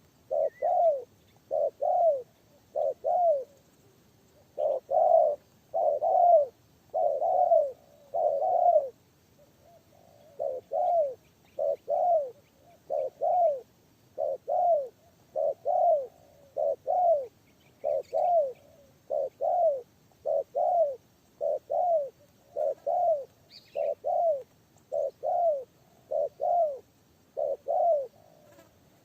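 Spotted dove (tekukur) cooing over and over, a long string of short, low, arched coos with a short break after the first few and a fuller, longer run of coos a few seconds in.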